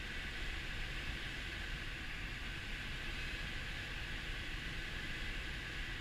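Air rushing over a glider's canopy and fuselage in unpowered gliding flight: a steady hiss with a low rumble beneath.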